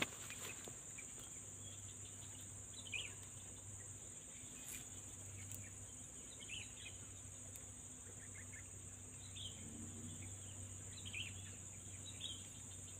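Steady high-pitched insect chorus, crickets or cicadas, with faint scattered short bird chirps.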